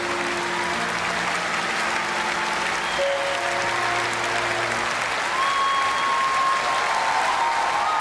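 Concert audience applauding over the closing held chords of the music as a live performance ends.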